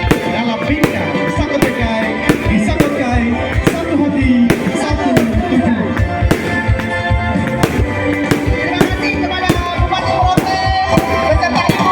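Loud music with singing and a steady beat, mixed with the repeated bangs of fireworks going off.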